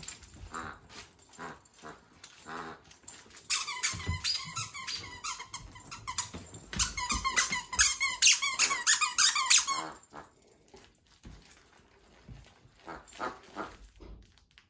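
Squeaker in a plush gnome dog toy squeaking rapidly and over and over as a dog bites down on it. It is a run of short, high squeaks lasting about six seconds, starting a few seconds in and stopping abruptly.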